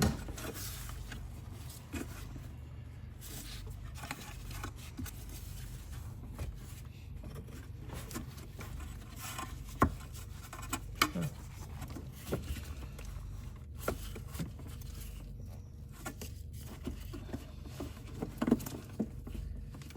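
Scattered small clicks, taps and scrapes of parts and tools being handled, with one sharper click about halfway through, over a steady low hum.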